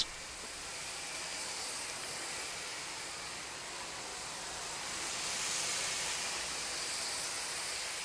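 Spray lance hissing steadily as degreasing liquid is sprayed onto the finned condenser coil of an air-cooled chiller, getting a little louder about five seconds in.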